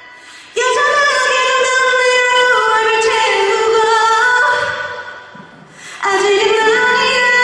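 A woman's pop vocal, sung without effects, holding long sustained notes in two phrases. There is a short breath-break about five and a half seconds in, and the next phrase starts on a lower note.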